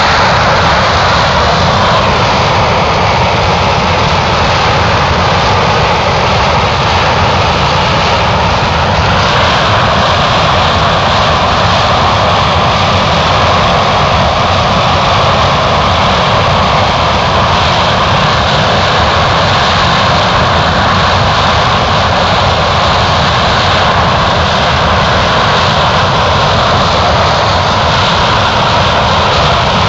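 Loud, steady aircraft engine noise, with a slight change in tone about nine seconds in.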